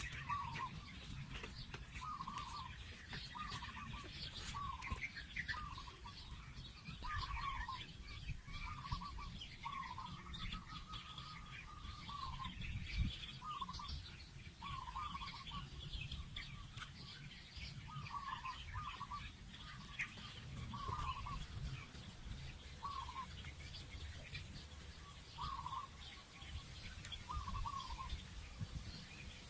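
Birds calling: short repeated notes about once a second, with fainter higher chirps among them, over a steady low rumble.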